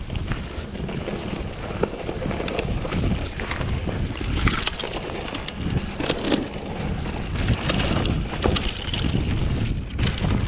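Full-suspension mountain bike rolling over a rocky, rooty forest trail: a steady low rumble of wind on the microphone and tyres on the ground, with scattered clicks and rattles from the bike as it hits rock and roots.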